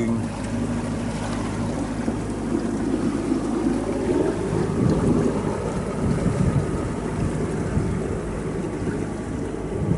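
A sailing yacht's engine running steadily as the boat motors over calm water, with water noise along the hull and wind on the microphone.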